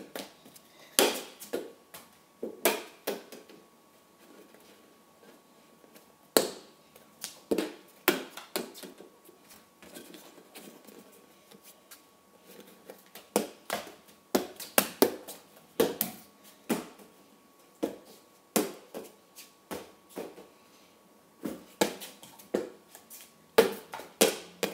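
Plastic soccer ball being kicked with bare feet and bouncing on a stone floor: runs of sharp taps at uneven intervals, broken by short pauses when the ball drops away.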